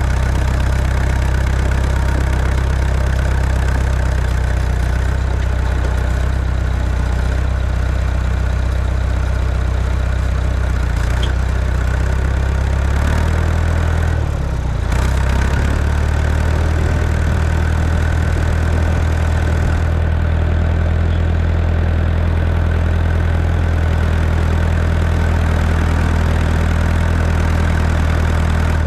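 Tractor engine running steadily while plowing compacted snow and ice. About halfway through its pitch sags briefly, then picks back up.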